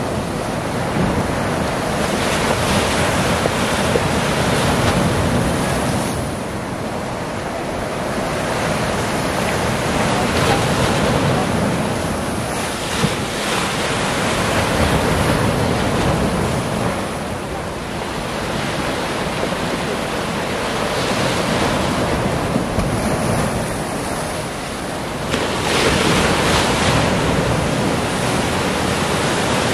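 Sea surf breaking and washing over a rocky shore, a steady rush that swells and eases with each wave every few seconds.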